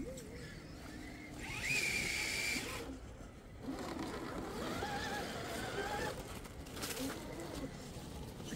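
Small electric motor and gears of a radio-controlled rock crawler whining as it drives, the pitch rising and wavering with throttle and load; the loudest burst comes about two seconds in.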